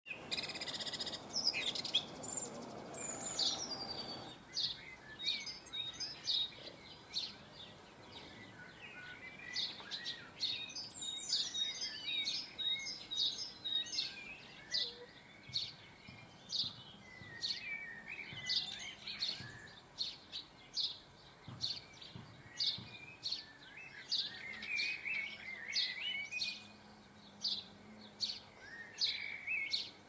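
Garden birds calling: a steady run of short, sharp high chirps, about one or two a second, with softer twittering beneath. A rushing noise is also heard for the first four seconds.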